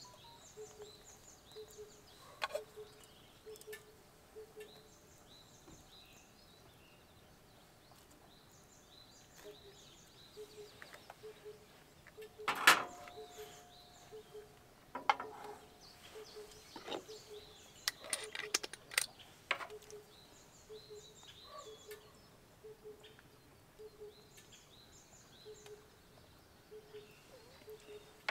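Outdoor ambience: birds chirping faintly, with a low note repeating steadily throughout. Scattered knocks and clatters; the loudest comes about 12 seconds in and is followed by a ringing tone that lasts a few seconds.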